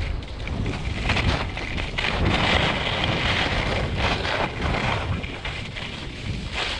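Wind buffeting the microphone of a camera carried downhill on skis, over the hiss and scrape of skis on snow, which grows louder about two seconds in.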